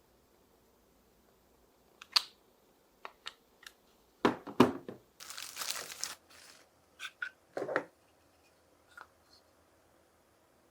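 Marbles running through a marble run track: scattered clacks and knocks as they hit and drop between track pieces, with a rushing roll lasting about a second, about five seconds in.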